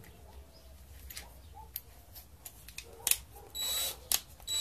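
Cordless drill being handled at its chuck: light clicks and taps, then about three and a half seconds in the motor runs for about half a second with a steady high whine.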